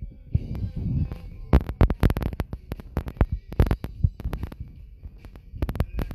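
Live drum kit played through a PA in loud, irregular hits rather than a steady beat, deep thuds mixed with sharp strikes that ring high. The hits start about a second and a half in.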